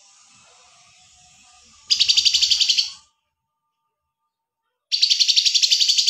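Two loud bursts of songbird trilling, each about a second long, a fast run of a dozen or so sharp high chirps. The first comes about two seconds in, the second near the end, with dead silence between them.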